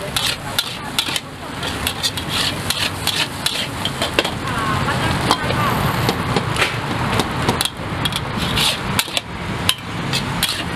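Metal spatula clanking and scraping against a wok as pad thai is stir-fried: many irregular sharp clinks over a frying sizzle.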